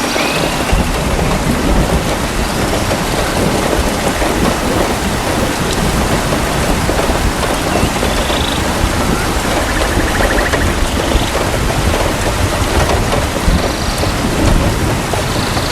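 Heavy rain falling steadily, with a low rumble of thunder that comes in about half a second in and keeps rolling underneath. A few faint short chirps sound over the rain.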